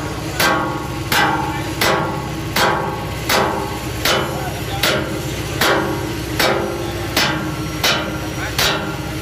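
Small hammer striking the steel beams of a weighbridge frame in a steady rhythm, about a dozen blows roughly three-quarters of a second apart, each with a short metallic ring. A steady low hum runs underneath.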